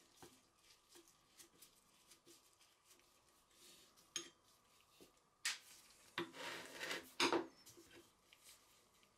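Small metallic clicks and scrapes as an antique cast-iron potato chip cutter is taken apart with a screwdriver, with a louder clatter and scraping of metal parts about five to seven seconds in.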